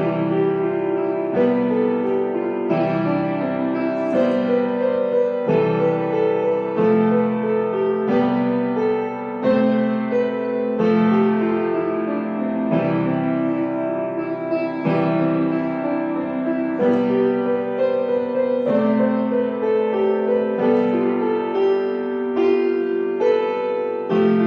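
Solo piano music: slow chords struck about every one and a half seconds, each one ringing and fading before the next.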